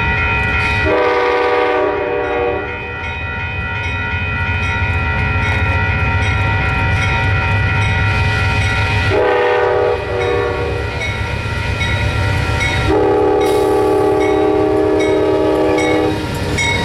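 Amtrak GE Genesis P42DC diesel locomotive approaching at speed and sounding its air horn three times: a short blast about a second in, another short one around nine seconds, and a long blast from about thirteen seconds. The rumble of the engine and wheels builds as it passes close near the end.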